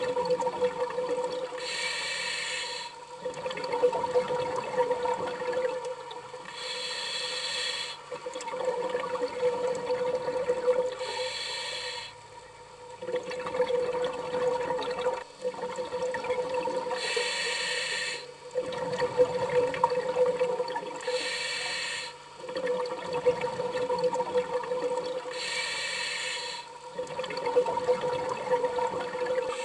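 Underwater sound of a scuba diver breathing through a regulator: a hiss of about a second on each inhalation, about every four to five seconds, with bubbly exhalation noise between, over a steady low hum.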